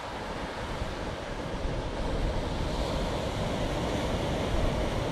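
Ocean surf washing steadily onto a sand beach, with wind buffeting the microphone. The sound grows a little louder about two seconds in.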